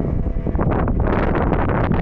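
Wind buffeting the microphone, a loud uneven rumble with gusty flutters.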